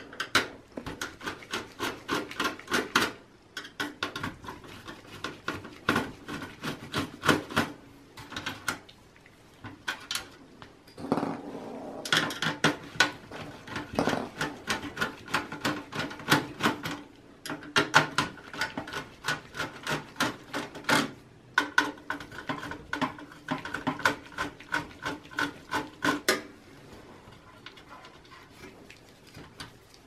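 Screwdriver backing the motherboard screws out of a computer's steel chassis: runs of rapid clicking and scraping, metal on metal, with short pauses between screws. The work stops near the end.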